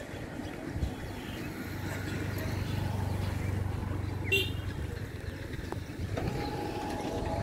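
Low, steady engine hum through the middle, with a short high squeak about four seconds in. A second, higher-pitched drone starts about six seconds in.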